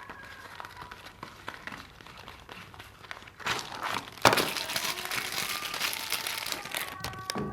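Soap bar's wrapper being torn open and crumpled by hand: light taps and rustles at first, then from about four seconds in a loud, dense crinkling that stops shortly before the end.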